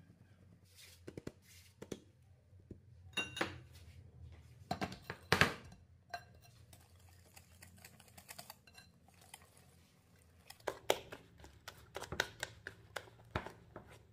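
A wire whisk and a mesh sieve clinking and scraping against a glass mixing bowl as flour is stirred into wet cake batter, in irregular clusters of sharp taps.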